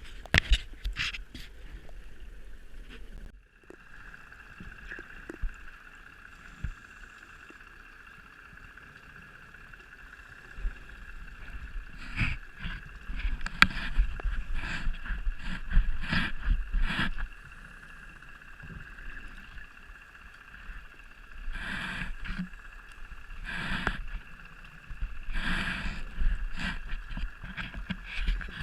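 Scuba diver's regulator breathing underwater: loud gurgling bursts of exhaled bubbles in clusters, with quieter stretches between, over a steady faint high hum.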